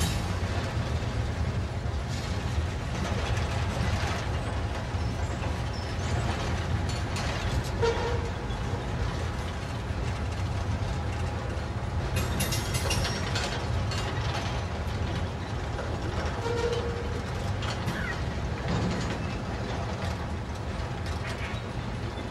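Freight train boxcars rolling past, their steel wheels rumbling, clicking and rattling steadily over the rail joints, with a couple of short squeaks.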